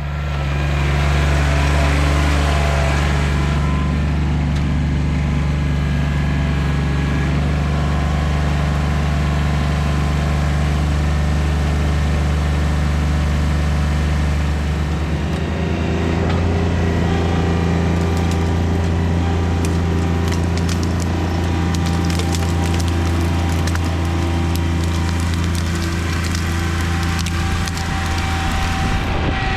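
John Deere 2320 compact tractor's three-cylinder diesel running steadily, its note rising a little about halfway through as it pulls a strapped pine limb. In the second half, wood cracks and splinters as the limb is dragged.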